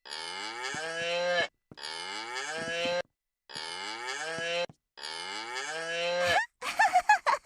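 A toy keyboard's animal-sound button playing a cow's moo four times in a row, the same recorded call each time.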